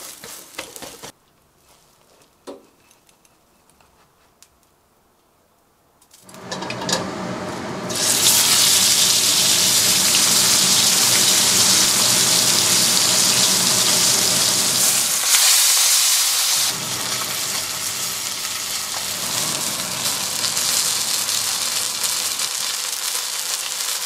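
Whole fish frying in hot oil in a stainless steel wok: after a few near-quiet seconds a loud, even sizzle builds up, is strongest for several seconds, then settles a little lower and steady.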